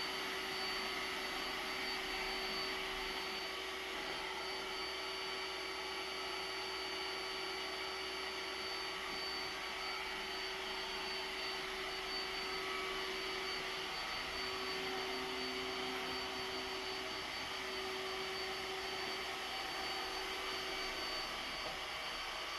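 iRobot Roomba s9+ robot vacuum running as it cleans the floor, its motor giving a steady whir with a thin high whine and a lower hum.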